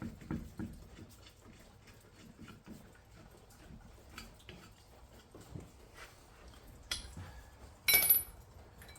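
Light knocks and clicks of metal parts being handled as a temporary spare wheel is fitted onto the hub, with a sharp click about seven seconds in and a louder ringing metallic clank about a second later.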